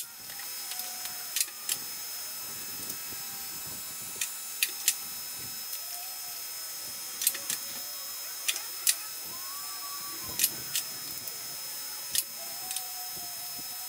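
Scattered sharp metal clunks and knocks, about a dozen, as a V10 TDI engine hanging from a hoist is pushed and shifted into a 4x4 chassis, over a steady background hiss.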